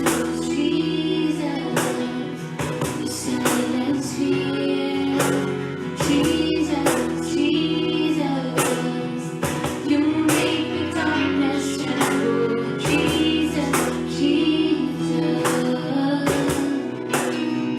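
Contemporary Christian worship music: a band playing over a steady drum beat, with a female voice singing.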